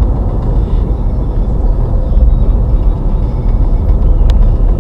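Car driving slowly, heard from inside the cabin: a steady low rumble of engine and tyre noise, with a single short click about four seconds in.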